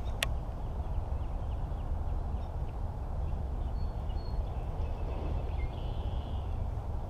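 Steady low rumble of wind on the microphone over open water. A single sharp click comes about a quarter second in, and faint, brief bird calls are heard through the middle.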